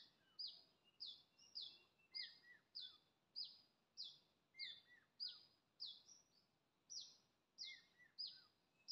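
A bird calling over and over, faint: short high notes that each fall in pitch, about two a second, with a few fainter, lower notes mixed in.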